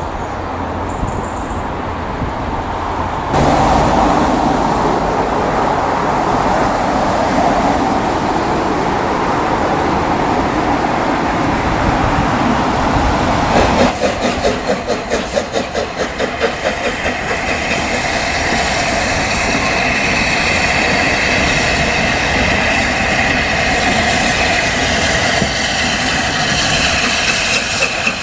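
LNER A4 Pacific steam locomotive 60009 Union of South Africa and its train arriving, a steady heavy running noise that changes about halfway through to a rhythmic beat of a few pulses a second.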